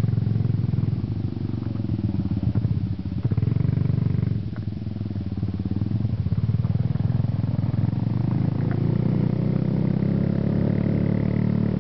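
Motorcycle engine running under way, easing off briefly about four seconds in and then building again.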